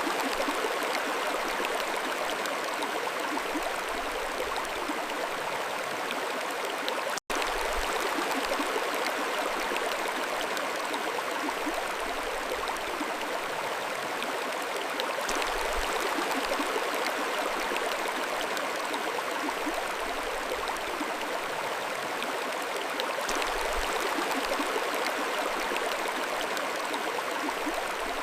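Mountain stream flowing steadily with a continuous rushing and gurgling of water. There is a split-second dropout about seven seconds in.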